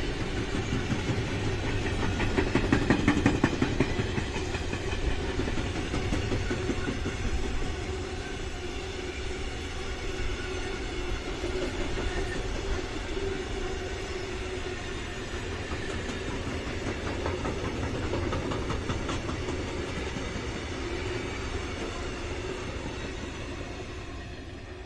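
Freight train of tarpaulin-covered wagons passing close by: a steady rumble of wheels on the rails with quick, regular clatter as the wheelsets cross rail joints. The clatter is loudest a few seconds in, and the sound eases off slightly near the end.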